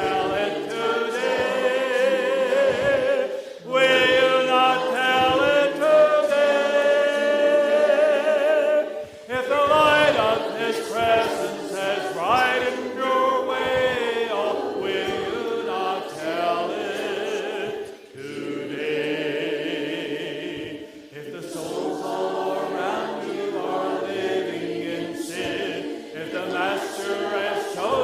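Congregation singing a hymn together, many voices in unison and harmony, with short breaks between the sung lines.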